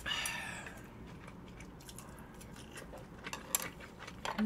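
Close-miked eating sounds: a breathy rush as a mouthful of chive bibimbap is taken in, fading over the first second, then soft scattered clicks of chewing and a short closed-mouth hum near the end.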